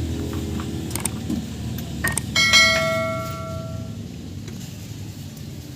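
A few light metallic clicks, then a metal tool or part is struck or dropped about two and a half seconds in and rings with a clear bell-like tone that fades over about a second and a half, over a low steady hum.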